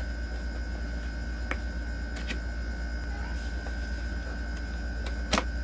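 Cardboard box being handled and worked open at its tape and flap: a few sharp clicks and taps, the loudest near the end, over a steady electrical hum.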